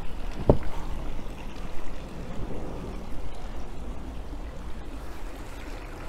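Steady rush of running water at outdoor concrete fish ponds over a low rumble, with one soft thump about half a second in.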